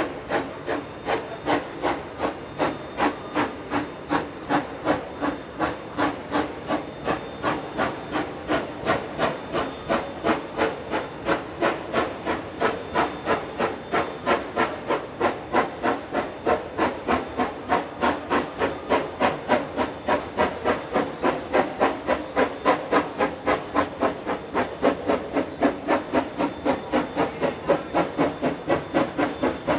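BB18¼ class steam locomotive working under steam, its exhaust beating in a steady, regular chuff of about three beats a second. The beats grow slightly louder as it approaches.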